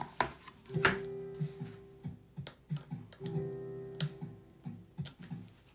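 Background guitar music, over a handful of sharp clicks and taps from a small screwdriver working at the screws of a laptop's speaker.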